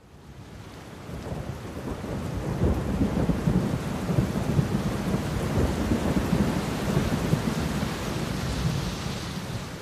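Rain with a low rolling rumble of thunder, fading in over the first couple of seconds and easing off slightly near the end.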